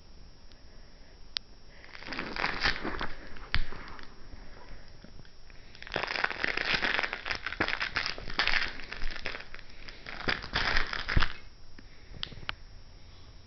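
Fabric rustling and crinkling as a hand and a dog handle a plush toy among fleece blankets. It comes in two spells, a short one about two seconds in and a longer one from about six to eleven seconds, with a few sharp clicks.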